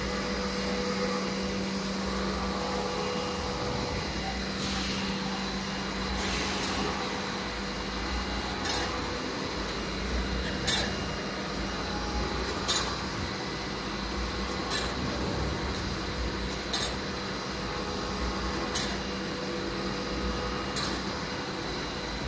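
Filter pleating machine running with a steady hum, with a sharp click about every two seconds through the second half.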